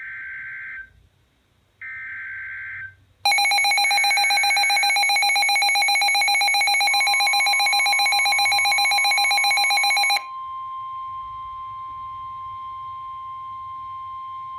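Emergency Alert System tones for a severe thunderstorm warning. Two screeching bursts of SAME digital header data, about a second each, are followed by the loud, harsh two-tone EAS attention signal for about seven seconds. A separate single steady tone comes in partway through and carries on alone after the attention signal cuts off.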